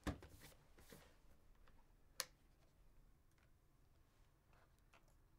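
Near silence with a few handling sounds of a laptop computer being set down and opened: a knock at the start, softer knocks within the first second, and one sharp click about two seconds in.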